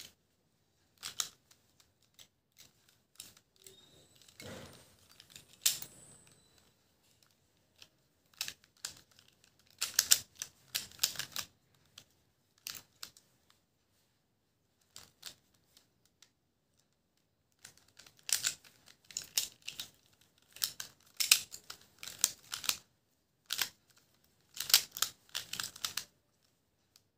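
Clicks and clacks of a plastic triangular Rubik's-style puzzle being turned by hand, in quick runs of turns with short pauses between them.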